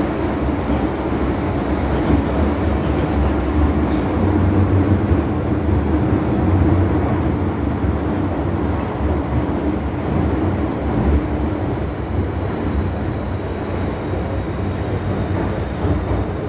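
Interior of an MTR M-Train subway car running through a tunnel: a steady rumble of wheels and running gear, with a low hum beneath.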